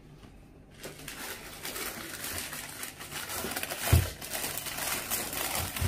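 Tissue paper and plastic wrapping rustling and crinkling as a shoe box is opened and unpacked, starting about a second in, with a soft thump about four seconds in.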